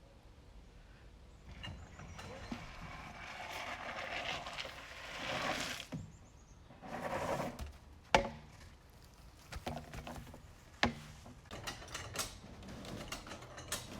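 Greenhouse being shoved by hand across its pad: drawn-out scraping drags, then two sharp knocks, with scattered clicks and creaks near the end.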